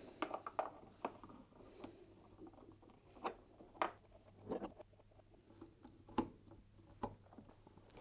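Scattered light clicks and knocks, about ten in all, from a fridge freezer's water inlet valve and its wiring connector being handled and fitted back onto the rear of the appliance, over a faint steady low hum.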